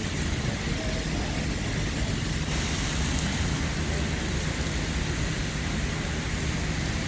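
Steady rain, an even hiss, with a low steady rumble underneath.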